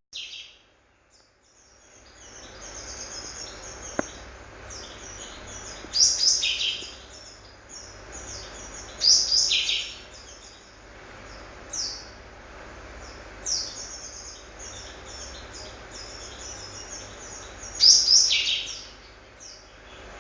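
A pet bird calling: a steady run of short, high chirps, broken by five louder bursts of calls, the longest lasting about a second.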